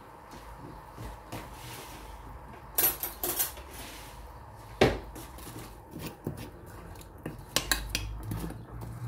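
A spoon clinking and knocking against a metal cooking pot: scattered clatters about three seconds in, one sharp loud knock near five seconds, then lighter clicks as the spoon stirs the mushrooms in the pot.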